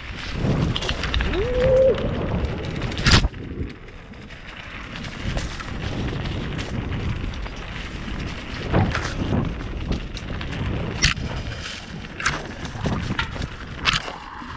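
Mountain bike on a fast downhill trail: steady low rumble of wind on the microphone and tyres running over the ground, with sharp rattling knocks from the bike hitting bumps, the loudest about three seconds in.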